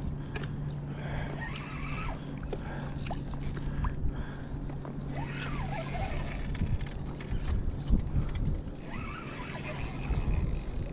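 Shallow bay water sloshing and lapping against a camera held at the surface, with small splashes throughout. A low steady hum runs under it for the first half, then stops.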